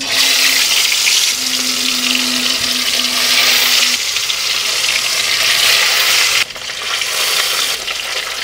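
Marinated fish pieces sizzling in hot oil in a kadhai, the hiss starting abruptly as they go into the oil. It stays loud for about six seconds, then eases somewhat and keeps going.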